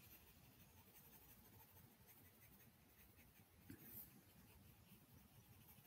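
Near silence with faint stylus tapping and rubbing on a tablet screen as handwritten ink is erased, slightly louder about four seconds in.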